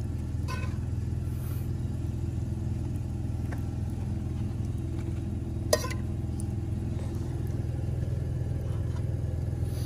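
Steady low engine hum, like an idling motor, with a single sharp click a little past halfway through.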